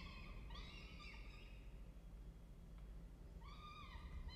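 Peregrine falcon chicks begging while being fed: short, wavering whining calls in two pairs, one pair at the start and another near the end, over a faint steady low hum.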